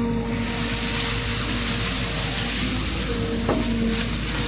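An engine runs steadily under a constant hiss.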